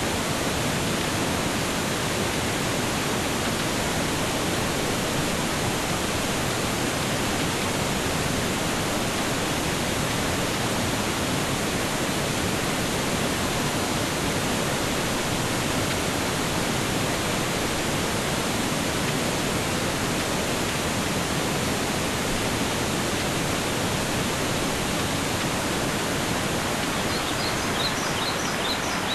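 Rushing water, like a waterfall or fast stream, making a steady, even rush with no rise and fall. A few faint high chirps come near the end.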